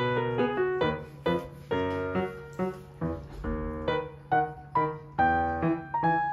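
Background piano music: a melody of struck notes that each start sharply and fade.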